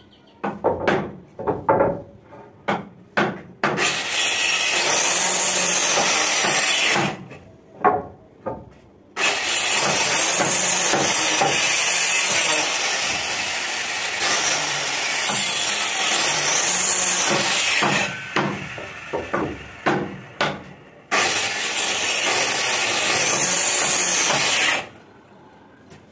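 Handheld angle grinder cutting into the wooden window-frame timber in three long runs that start and stop abruptly. Before the first run and between the second and third come series of short wooden knocks.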